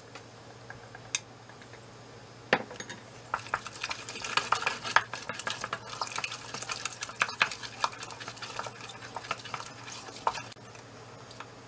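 Wooden spatula beating thick choux pastry dough in a stainless steel saucepan: irregular scraping and knocking of the spatula against the pan, a few isolated knocks at first, then a busy run of them from about three seconds in that stops shortly before the end.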